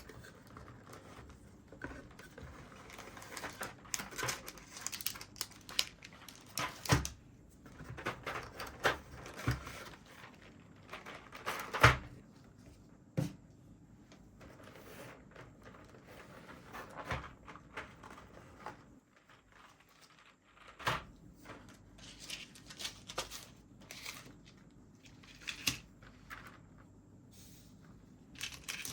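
Packaging handled during an unboxing: irregular rustling and crinkling with scattered light clicks and knocks, the loudest knock about twelve seconds in.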